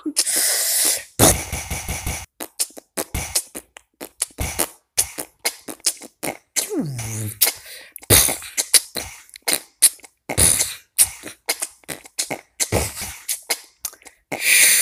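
Vocal beatboxing: a fast, irregular run of short mouth-made clicks, kicks and hissing snare strokes, with one downward-sliding tone about two-thirds of the way through.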